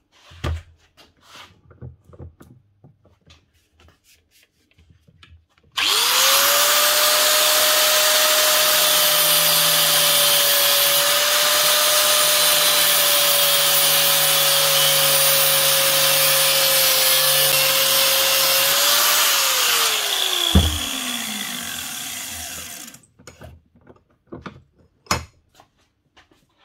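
Angle grinder with a cutting disc slicing down the side of a cordless drill's metal chuck to nip the threads and break its clamp on the spindle. Knocks and clatter of handling come first; about six seconds in the grinder starts up with a rising whine and runs steadily through the cut. A sharp knock comes near the end, then the motor winds down with a falling whine, followed by more scattered knocks.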